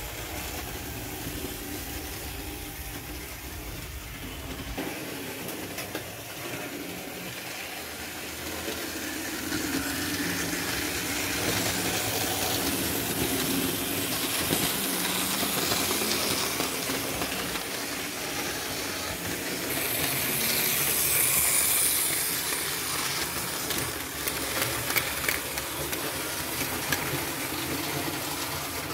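Märklin model trains running on the layout's metal track: small electric motors whirring and wheels clicking over the rails. A stronger hiss comes in for a couple of seconds about twenty seconds in.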